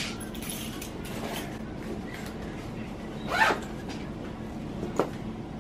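Zipper on a fabric backpack being pulled, the loudest zip a short rising rasp about three and a half seconds in, with a sharp click about a second later.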